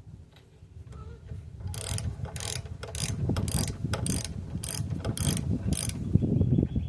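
Hand ratchet with a deep-well socket tightening a new spark plug, its pawl clicking in short runs about twice a second from about two seconds in, with a low rumbling handling noise underneath.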